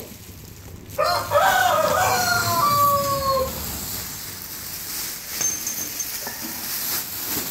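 A rooster crowing once, starting suddenly about a second in: one long call lasting about two and a half seconds, falling slightly in pitch at the end.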